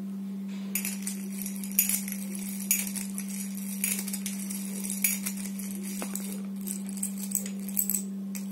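Steel spoon digging and scooping through dried kidney beans in a glass mug: irregular rattling and clinking of beans against the spoon and glass. A steady low hum runs underneath.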